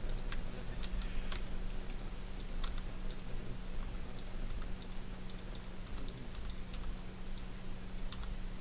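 Irregular, scattered clicks of a computer mouse and keyboard as objects are selected and deleted, over a steady low electrical hum.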